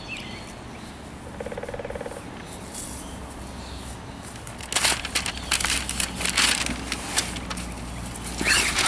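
A new Jeep soft top's fabric and clear plastic window crinkling and flapping as it is unfolded by hand from its shipping folds. The rustling grows louder and busier from about halfway through, with a loud crackle near the end.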